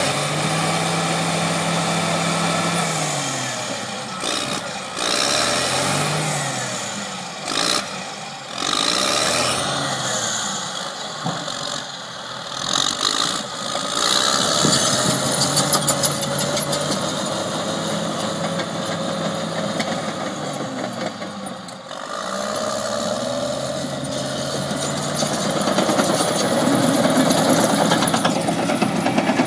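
Caterpillar D6R XW crawler dozer's diesel engine running and repeatedly revving up and down as the machine drives and pivots. Its steel tracks clatter rapidly, loudest midway through and near the end.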